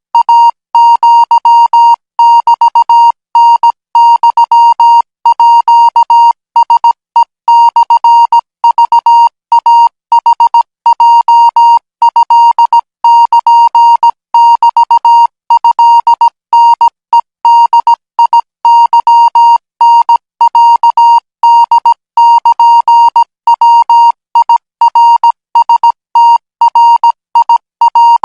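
Thai Morse code practice signal: a single steady high beep keyed on and off in short and long pulses, dots and dashes sent at 20 words per minute.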